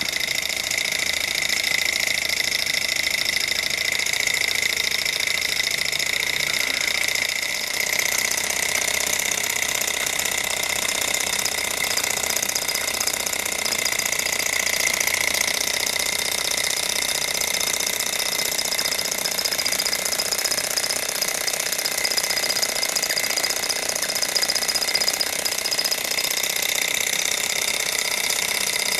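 Small two-piston gamma-type Stirling engine with a glass cylinder running steadily, driving a belt-driven toy generator: a fast, even mechanical rattle of its metal crank and linkages, with a steady high-pitched whine.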